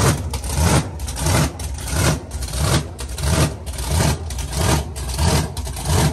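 Loud truck engine idling with a lumpy, even lope, swelling about twice a second.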